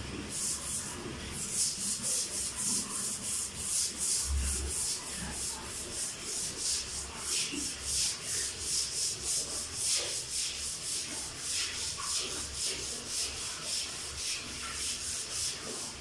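Long-handled stiff-bristled floor brush scrubbing a floor in quick back-and-forth strokes, about three a second, starting a moment in.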